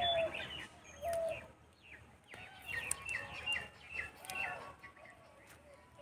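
Birds calling: a few short, lower notes, and about three seconds in a quick run of five high chirps, each falling in pitch.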